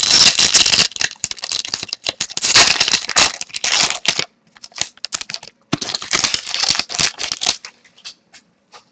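Trading cards being handled and shuffled through by hand: dense spells of rustling and clicking as the cards slide and snap against one another, with a short pause about four seconds in and only scattered clicks near the end.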